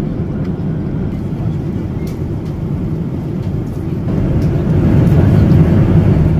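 Steady low rumble of a vehicle in motion, growing louder about four seconds in.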